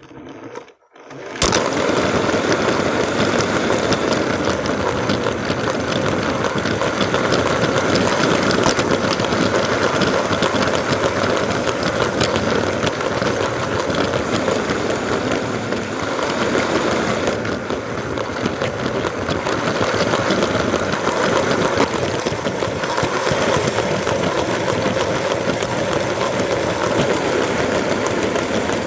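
Lego 9V train motor running steadily, its wheels rattling along plastic 9V track, heard up close from a camera riding on the train; it starts up about a second and a half in.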